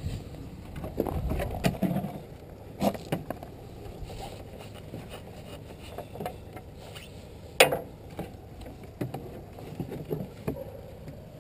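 Scattered knocks and clicks of gloved hands working at a VW T3 Transporter's rear oil filler: the fold-down number-plate flap, the filler cap and a plastic engine-oil jug being handled. The loudest is one sharp knock about two-thirds of the way through.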